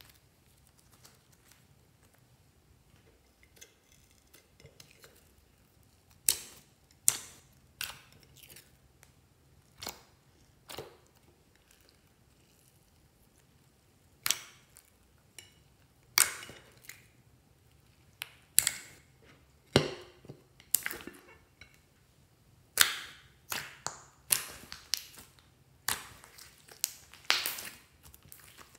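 Hands squishing and pressing glossy slime, giving irregular sharp wet pops and clicks. It is near quiet for the first six seconds, then the pops come about once a second and crowd together near the end.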